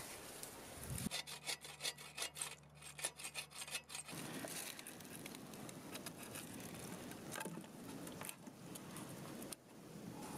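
A hand tool working wood: a quick run of rasping strokes for about three seconds, followed by softer rustling and handling noise.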